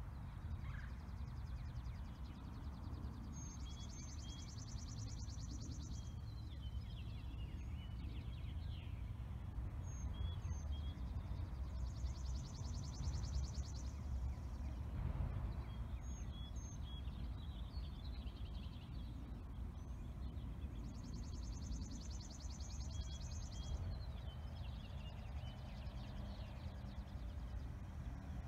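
Outdoor birdsong over a steady low rumble: a songbird's dry, rapid trill about two to three seconds long, repeated three times roughly nine seconds apart, with short high chirps in between.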